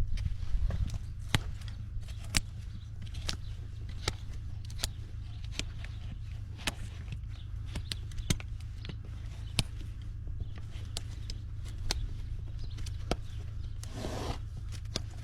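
Sharp, irregular clicks and knocks, about one or two a second, from hoof work on a Shire draft horse, over a steady low hum.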